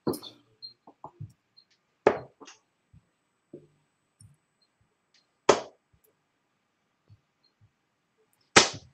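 Darts striking a bristle dartboard: a knock at the start, then three sharp thuds about three seconds apart.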